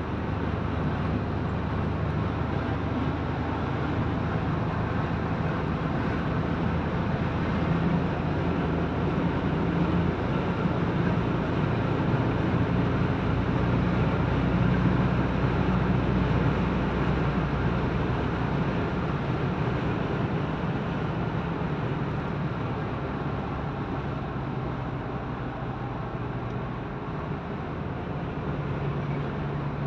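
Steady engine and tyre drone of a car driving at highway speed, heard from inside the cabin: a low hum over road noise that swells a little midway and eases toward the end.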